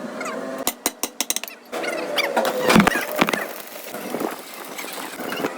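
A run of sharp metal clinks and knocks from tools and parts being worked, with a quick cluster of strikes about a second in.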